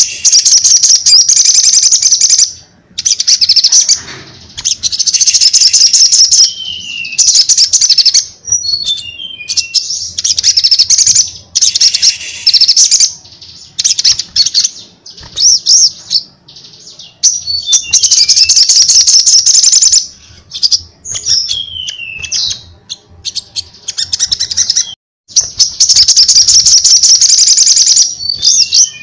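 Caged male sunbird singing loudly and constantly: phrase after phrase of very rapid, high twittering trills, mixed with short falling slurred notes, with brief pauses between phrases. This is the bird in full song (gacor).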